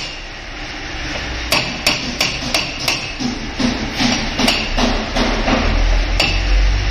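Hammer blows in a steady run, about three a second, starting about a second and a half in and stopping near the end. A low rumble rises underneath in the second half.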